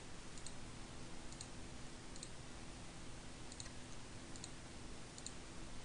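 Faint double clicks about once a second, unevenly spaced, over a low steady hiss and hum.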